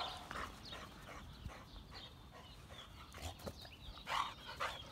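Faint sounds of a boxer-type dog moving about in play: a few short scattered noises, with a brief louder cluster about four seconds in.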